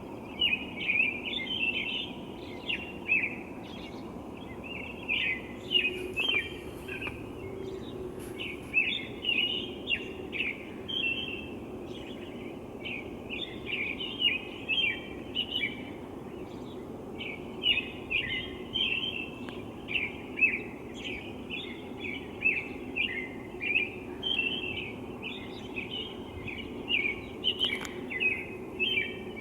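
Birds chirping and singing in a predawn chorus: a dense, unbroken run of rapid high chirps, with a steady low hum underneath.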